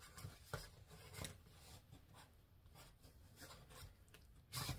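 Faint rustling and handling of paper and cardboard as items are moved about in an open cardboard box, with a louder rustle near the end.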